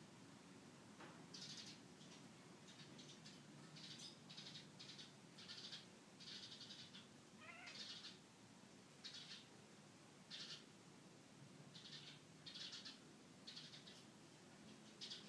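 Black-and-white Manx cat making a string of faint, short, high chirping meows at birds outside, about one a second, with one rising call a little past halfway.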